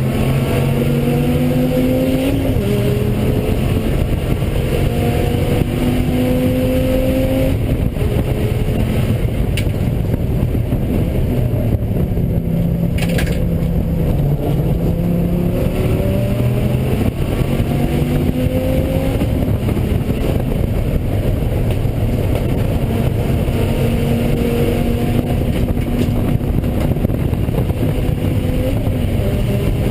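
Dodge Viper ACR's V10 engine under way on track, its pitch climbing repeatedly and dropping back as it shifts up, with stretches of steadier, lower revs between. The engine has a misfire.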